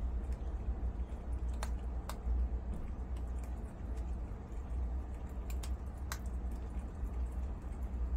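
Prairie dogs chewing dried zucchini chips: scattered small crisp clicks and crunches, over a steady low hum.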